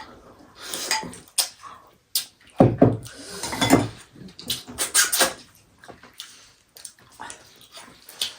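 Close-up mukbang eating sounds: slurping soup and chewing, broken into irregular bursts, with a few sharp clinks of dishes.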